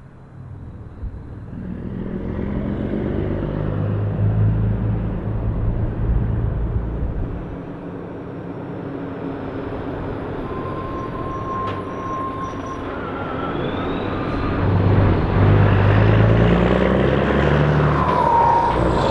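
Volvo FH16 520 truck's 16-litre straight-six on an open exhaust pipe, pulling away and driving up close, its engine note building, easing off briefly near the middle and growing loudest near the end. A short rising turbo whistle is heard about two-thirds of the way through.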